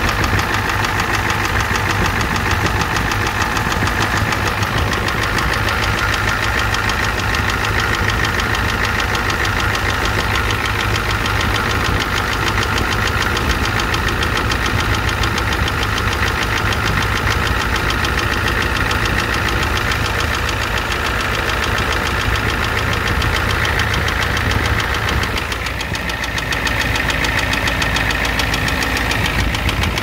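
1988 Ford F-250's 7.3 L IDI V8 diesel running with a rapid, steady clatter and knock, in an engine that also has a leaking high-pressure fuel line.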